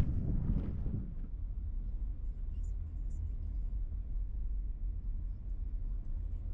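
Footsteps on a wooden boardwalk for about the first second. After a cut, the steady low rumble of a car driving, heard from inside the cabin.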